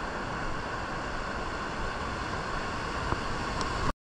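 Steady rush of surf with wind rumbling on the microphone; it cuts off abruptly near the end.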